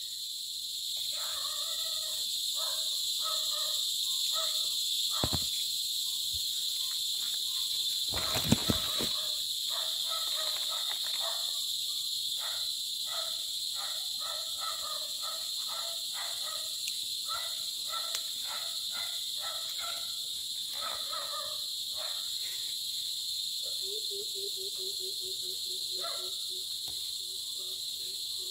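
Steady high-pitched chorus of tropical forest insects. Short repeated calls from another animal sound over it, and a couple of brief knocks come about five and eight seconds in.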